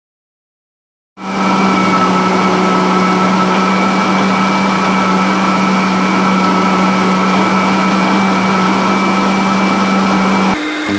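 Vacuum cleaner running with a steady hum. It cuts in after about a second of silence, and near the end its pitch jumps higher and it gets a little quieter.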